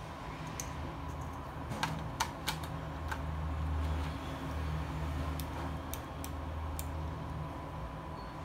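Scattered light clicks and taps of rOtring Isograph technical pens being handled and fitted into the insert tray of their case, with a steady low hum underneath.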